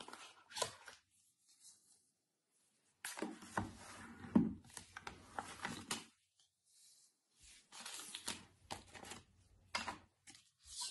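Hands unpacking a drone's packaging: rustling, tearing and sharp clicks of box and wrapping being handled, in three spells broken by sudden dead silences.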